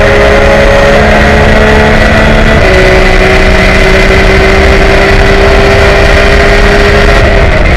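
Porsche race car's engine heard from inside the cockpit, running hard under full throttle with its note climbing slowly, an upshift about two and a half seconds in, and the note falling away near the end as the throttle is lifted.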